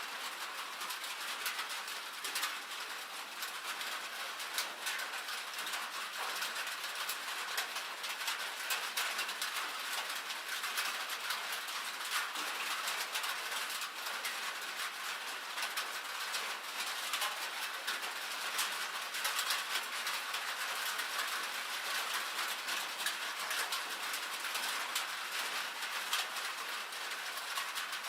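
Rain and hail falling on a metal roof: a dense, steady patter made up of countless sharp ticks of drops and hailstones striking the sheet metal.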